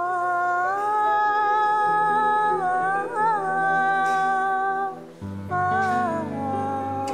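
Background music: a wordless hummed vocal melody holding long notes, wavering about three seconds in, with a low bass note coming in under it after about five seconds.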